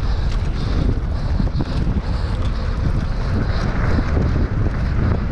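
Wind buffeting the camera microphone of a mountain bike descending a dirt trail at speed, over a steady low rumble of tyres on packed dirt, with a few small clicks and rattles from the bike.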